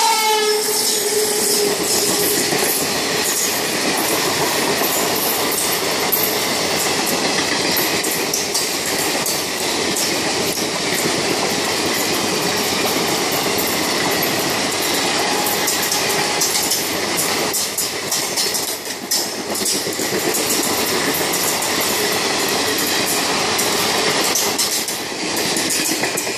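Passenger train coaches running past at speed: a steady rush of steel wheels on rail with clickety-clack over the rail joints. The electric locomotive's horn dies away in the first second.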